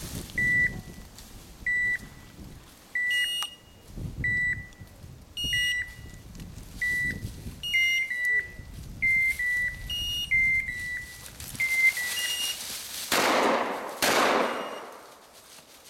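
Dog beeper collars beeping in point mode, about one short electronic beep a second, the sign that the setters are holding point on a quail. Near the end, two shotgun shots about a second apart.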